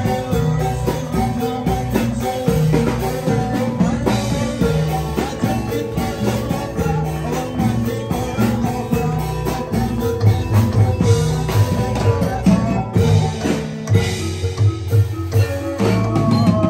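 Live band music with a drum kit keeping a steady beat under melodic instruments.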